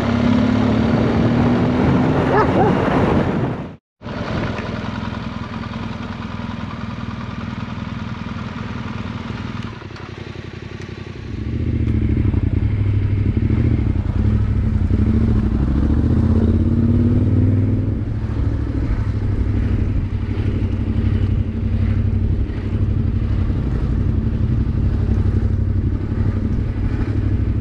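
Motorcycle engine running under way, likely the Yamaha Ténéré 700's parallel-twin, its pitch rising as it accelerates near the start and again in the middle. The sound cuts out for a moment about four seconds in, then runs on, growing louder from about eleven seconds.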